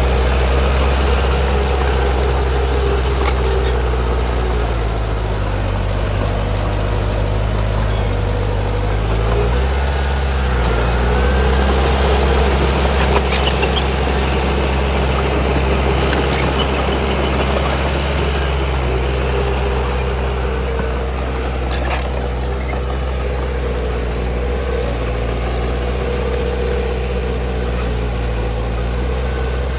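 Heavy diesel earthmoving machinery running steadily, its engine note shifting lower and higher a couple of times, with a few sharp metallic clanks.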